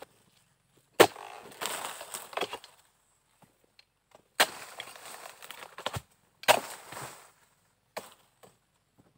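Sharp dodos chisel on a long pole thrust into the base of an oil palm: three hard chopping strikes, about a second in, around four and a half seconds and six and a half seconds, each followed by a second or so of woody crackling rustle, then a lighter knock near the end.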